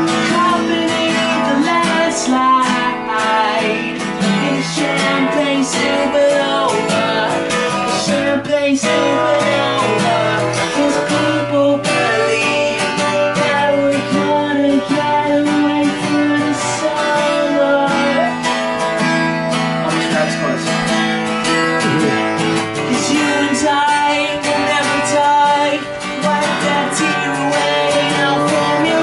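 A man strumming a cutaway acoustic guitar and singing along, with no pauses.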